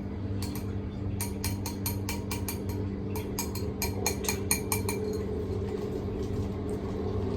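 Mixing utensil clinking rapidly against a bowl while stirring lumpy atta-and-milk pancake batter, a run of several clinks a second through the middle, over a steady low hum.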